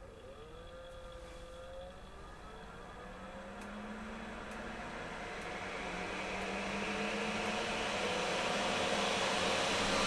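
Dometic RTX 2000 rooftop air conditioner starting up: its blower fans spin up with a whir that rises steadily in pitch and loudness, the compressor not yet running.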